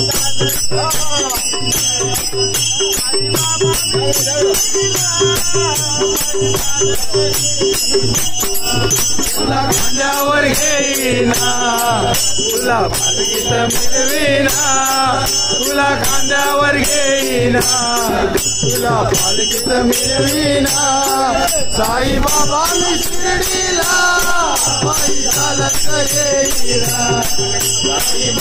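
A group of men singing a Marathi devotional bhajan to Sai Baba, kept in time by small brass hand cymbals (taal) struck in a steady rhythm that rings over the voices.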